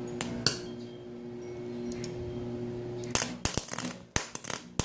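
Sharp metallic clicks and clinks as welding gear is handled: one or two near the start, then a cluster in the second half. Under them runs a steady low electrical hum.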